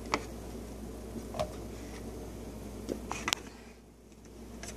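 A few short clicks and taps of a table knife against buttered bread and a plastic plate as butter is spread, over a steady low hum.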